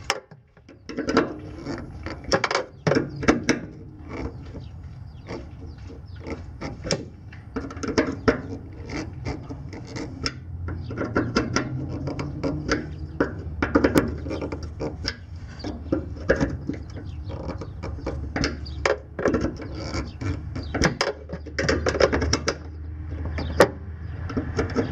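Nut driver being fitted onto and turned on small steel nuts on the 8 mm studs of a fuel pump mounting flange, gently snugging them. It makes irregular metallic clicks, taps and scrapes, with a low steady hum underneath.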